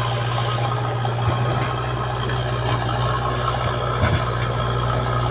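Diesel engine of a backhoe loader running steadily with a low, even hum, with a couple of brief knocks.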